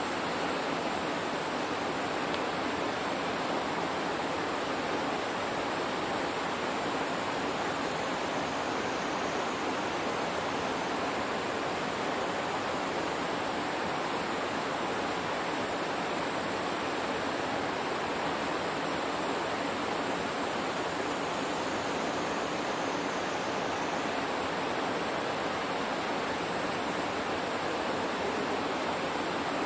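Steady, even rushing noise with nothing standing out in it, like running water.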